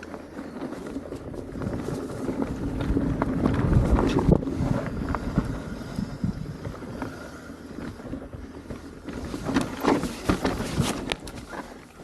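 Mountain bike rolling over rough rock, with a rumble of tyre noise and wind on the microphone and many sharp clicks and knocks from the bike, loudest about four seconds in.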